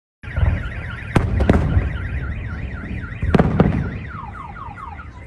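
Fireworks shells bursting with sharp bangs in two close pairs, each followed by a low rumble, over a car alarm that warbles about four times a second and then switches to a run of falling chirps near the end.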